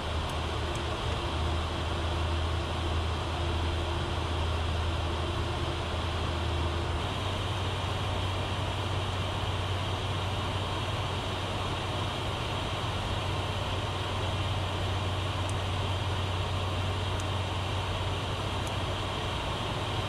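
Steady cockpit noise of a Learjet 60XR business jet in descent: rushing airflow and the hum of its twin turbofan engines, with a low drone that steps down a little about seven seconds in.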